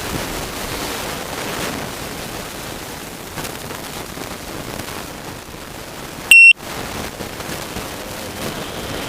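A single short, loud electronic beep a little over six seconds in, over steady background noise.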